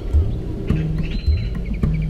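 Background music with a steady beat, with birds chirping faintly over it.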